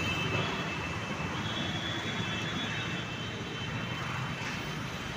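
A steady, distant engine drone.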